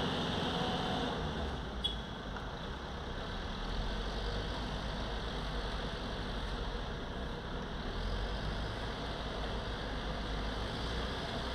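Steady diesel engine and working noise of a W-50 small asphalt cold milling machine, with its 4.1-litre engine, mixed with a backhoe loader's engine running alongside. A single sharp tick sounds about two seconds in.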